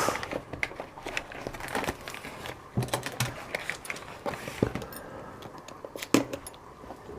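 Sticky tape being picked at and peeled off by hand, with crinkling and scattered light clicks.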